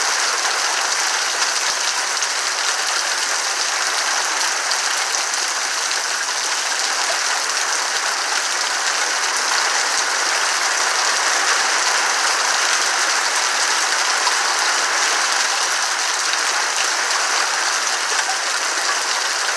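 Rain coming down steadily on tree leaves, a dense, even hiss of drops.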